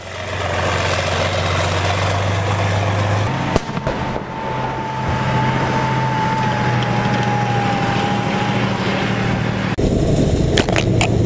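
Tank engine running steadily with a low hum, with a sharp crack about three and a half seconds in and a thin whining tone holding for several seconds after it; a few more sharp cracks near the end.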